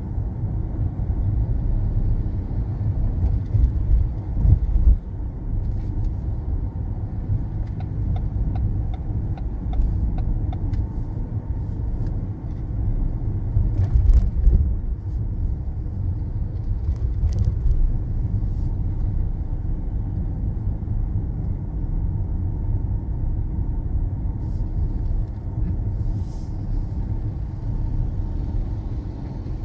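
Ford Fiesta SE hatchback with a small four-cylinder engine and automatic transmission, driving along: a steady low rumble of engine and road noise, swelling louder briefly twice.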